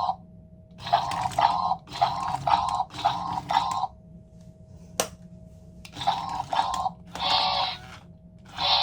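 Remote-control self-balancing toy robot making electronic voice sounds: groups of short syllable-like chirps with pauses between them, over a faint steady whine. A single sharp click comes about five seconds in.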